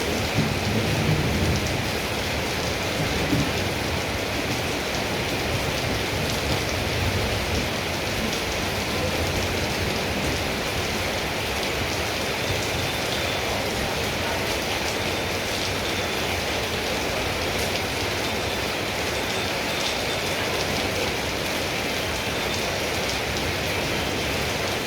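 Steady rain falling, an even hiss of drops, with a low rumble in the first few seconds.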